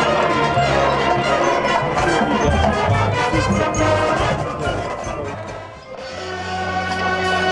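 Loud instrumental music with brass, dropping away briefly about six seconds in before a held chord.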